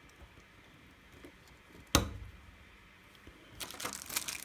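Handling of plastic camera batteries and a small charging dock: one sharp click about two seconds in, then a run of light rustling and clicks near the end.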